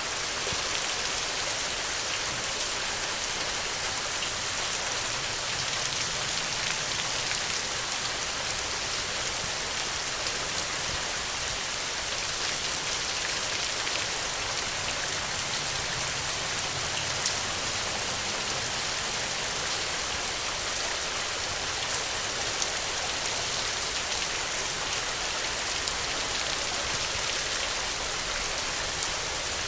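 Steady rain falling: an even hiss of many drops, with a few louder single drops standing out.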